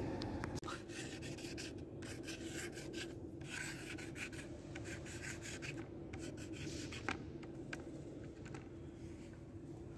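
Marker nib rubbing and scratching across a sign in many quick short strokes as a graffiti tag is written, over a steady low hum.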